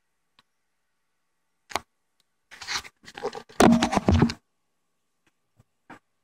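Handling noise from the camera being picked up and moved: a sharp click, then about two seconds of rubbing and scraping close to the microphone, and a few faint taps near the end.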